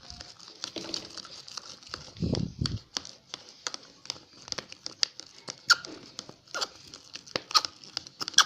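Slime being squeezed and stretched by hand, making many irregular sticky clicks and crackles.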